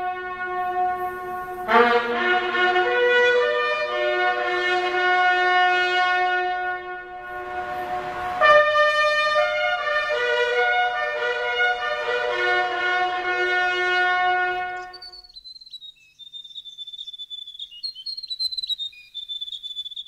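A solo brass instrument plays a slow bugle-style call of long held notes, stopping about fifteen seconds in. Faint high chirps follow.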